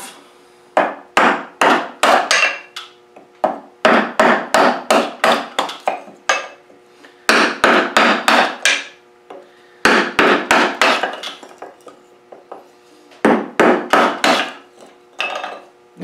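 Batoning: a stick of pine repeatedly whacked onto the spine of an Old Timer Capybara 30OT fixed-blade knife, driving the blade down through a 1.5-inch block of pine. Sharp wooden knocks come in runs of four to eight, about three a second, with short pauses between runs.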